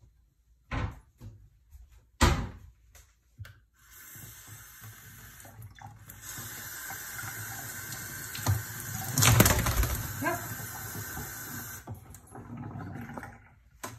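A tap running into a utility sink, the water noise building up and holding steady for several seconds, with a louder burst about two thirds of the way in. A few sharp knocks come first, in the opening couple of seconds.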